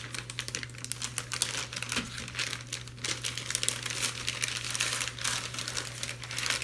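Plastic crinkling and rustling, with many small crackles throughout: an MRE food pouch being worked into the plastic bag of a flameless ration heater. A low steady hum runs underneath.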